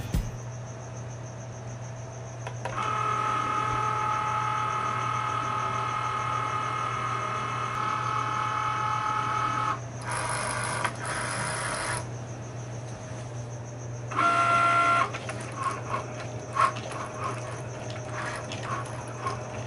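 Cricut Maker cutting machine's motors running: a steady whine of several fixed tones for about seven seconds as it moves the mat and tool carriage, a short hiss, another brief whine, then a run of short whirs and clicks as the carriage moves in small steps.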